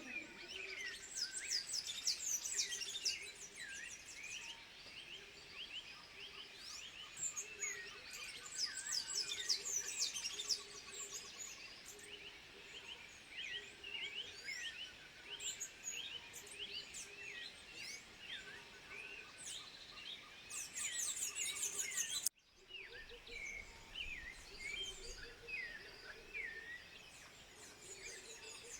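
Many birds chirping and trilling over each other in a dense chorus, with a low pulsing call running underneath. The sound cuts out for an instant about two-thirds of the way through, then resumes.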